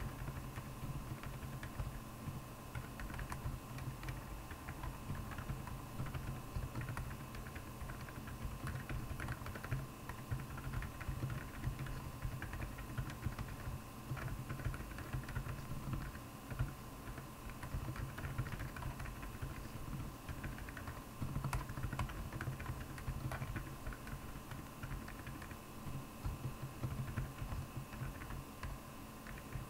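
Steady typing on a Royal Kludge R75 mechanical keyboard fitted with Akko Penguin silent tactile switches: a fast, continuous run of keystrokes.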